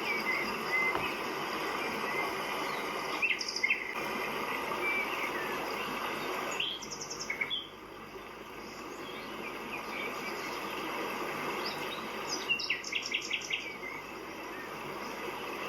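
Birds calling over a steady background hum of outdoor noise. There are a few short whistled notes at the start, then quick runs of chirps a few seconds in, around halfway, and again near the end.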